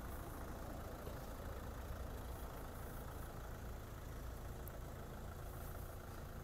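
Steady, low engine rumble at idle, even throughout.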